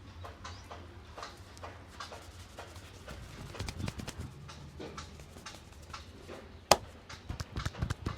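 A barber's hands tapping and patting a head in a massage, soft taps two or three a second, with one sharp, much louder crack about two-thirds of the way in, then quicker, harder tapping near the end.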